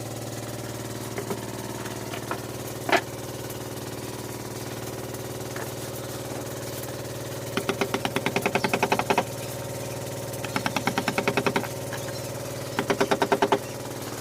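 Bursts of rapid tapping, about ten strikes a second and each lasting a second or so, over a steady machine hum.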